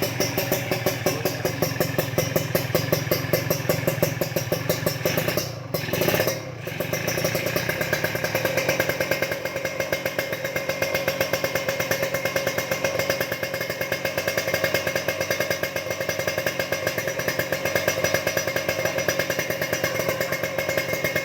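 Kawasaki Ninja 150 two-stroke single-cylinder engine running steadily through an aftermarket Empush exhaust, a fast even pulsing note, with a brief dip in loudness about six seconds in.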